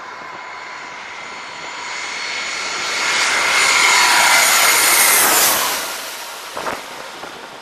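Airbus A320 airliner on landing approach passing low overhead: its turbofan whine swells over a few seconds, peaks as it passes, then drops in pitch and fades. A brief thump near the end.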